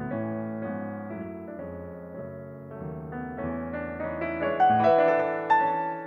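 Fazioli grand piano played solo in a classical piece. The music grows louder and climbs higher in the second half, with strongly struck chords near the end.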